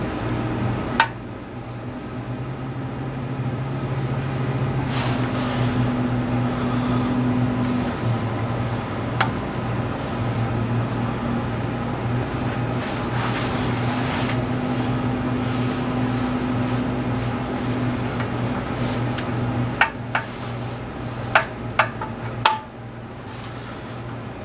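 A steady low mechanical hum, like a fan or appliance running, with a few sharp clicks and clinks: one about a second in, one partway through, and a cluster of four or five near the end.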